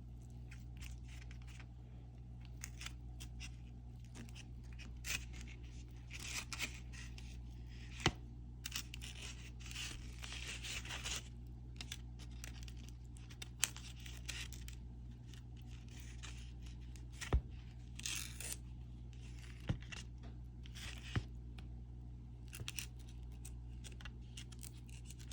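Refrigerated cinnamon roll dough being cut into quarters: scattered scraping and tearing noises with a few sharp taps, over a steady low hum.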